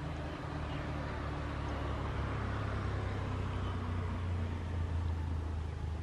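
Diesel locomotive's engine running under power as it approaches, a low steady drone that grows a little louder as it nears.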